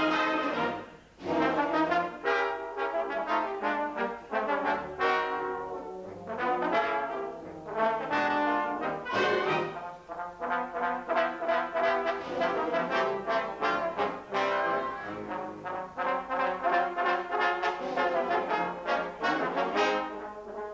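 Four solo trombones playing with a military wind band accompanying, in phrases of detached and held notes, with a short break about a second in.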